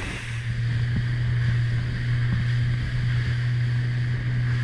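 Motorboat engine running steadily underway, a constant low hum under a hiss of wind and water.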